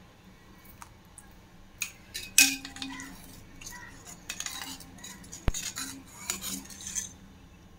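Steel ladle stirring watery curry in a stainless steel pot, scraping and clinking against the pot in irregular strokes from about two seconds in, with one sharp clink near the middle.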